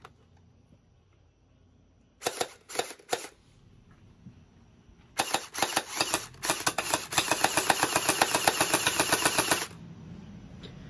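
Anstoy electric gel ball blaster (AEG) firing: a short string of about four shots, then a rapid full-auto burst of about four and a half seconds that cuts off suddenly.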